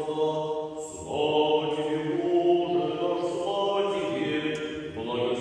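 Russian Orthodox liturgical chanting during the wedding service: voices sing long, steady held notes, moving to new notes about a second in.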